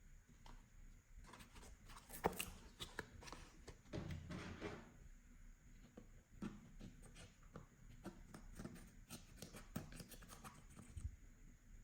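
Slime being mixed and squished by hand: faint, irregular small clicks and sticky pops.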